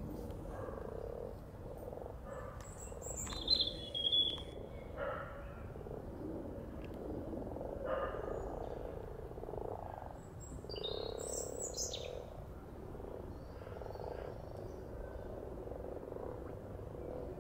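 Common frogs at a spawning pond calling in a chorus of low croaks, many overlapping and repeating: the males' breeding call. Short high chirps, likely a bird, come about three and a half seconds in, which is the loudest moment, and again around eleven seconds.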